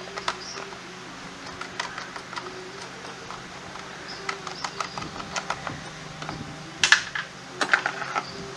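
Scattered light clicks and clinks of tools and parts being handled during scooter wheel work, the loudest cluster about seven seconds in, over a steady low hum.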